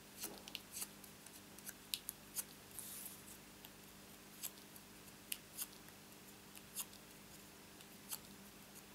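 Small punched cardstock flower petals being curled around a pencil: a scattering of faint, crisp paper crinkles and clicks at irregular intervals, over a low steady hum.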